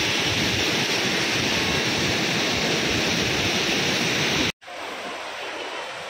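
Steady, even rush of a monsoon-swollen waterfall and river in flood. About four and a half seconds in, the sound cuts out for an instant and comes back quieter, as brown floodwater rushing over rocks close by.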